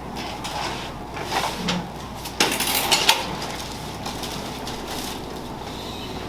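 Patient shifting onto his side on a padded chiropractic treatment table, with rustling and creaking, then a short cluster of sharp cracks about two and a half to three seconds in.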